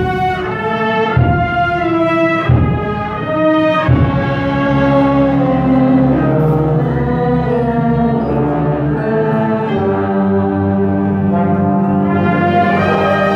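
Wind symphony playing live, brass and woodwinds together. A few sharp accented hits come in the first four seconds, then the band moves into held chords.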